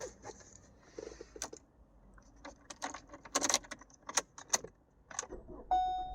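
A bunch of car keys jangling and clicking in the hand, with a series of sharp irregular clicks, as the new transponder key is readied to start a 2016 Ford Escape. Near the end the car's electronic warning chime begins, one steady tone.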